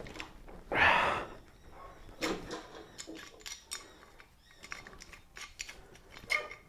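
An animal out the back calling loudly twice, about a second in and again just after two seconds. Between and after the calls come light clicks and knocks of metal tools being worked on a mower handle.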